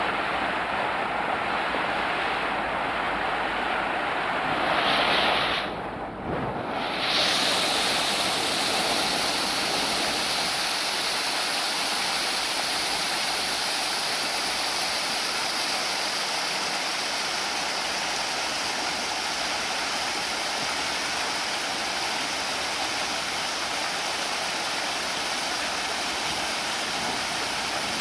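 Mountain stream water rushing steadily over rocks. The sound dips briefly about six seconds in, then carries on slightly louder and brighter.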